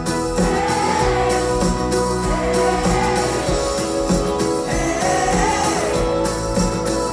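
Live pop-rock band playing through a concert PA, with singing in long, held, arching phrases over steady sustained chords.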